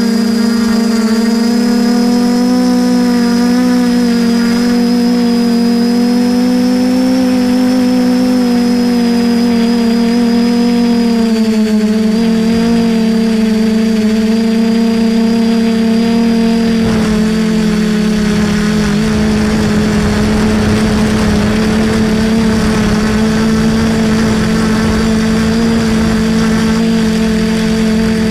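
DJI F450 quadcopter's four motors and propellers humming loud and close, as heard by a camera on the frame, the pitch drifting slightly up and down with the throttle. Partway through, a rougher rushing noise joins the hum.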